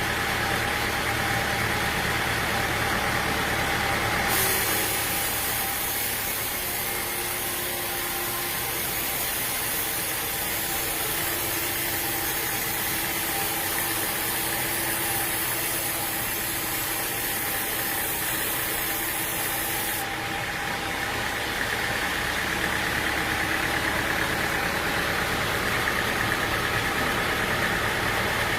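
An engine running steadily. About four seconds in, the low rumble drops back and a strong high hiss comes in; at about twenty seconds the fuller rumble returns.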